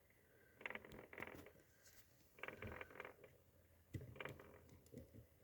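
Near silence: room tone with a few faint, short sounds.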